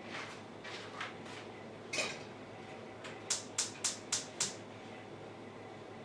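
A pot set down on a stovetop with a light knock, then a gas burner's igniter clicking five times, about four clicks a second, as the burner is lit for a very low heat.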